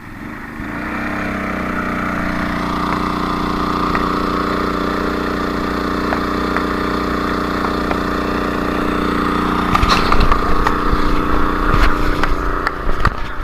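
Engine revving up just after the start, then running steadily at a high, even speed. From about ten seconds in, irregular knocks and clatters sound over it.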